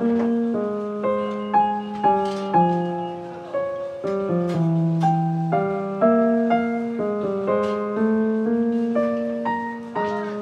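Background piano music: a melody of single notes struck about twice a second, each dying away, over lower sustained notes.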